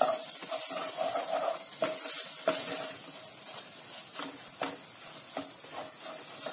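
Wooden spatula stirring and scraping around a saucepan, with irregular knocks against the pan, while onion paste and soya chunks fry in oil with a steady sizzle.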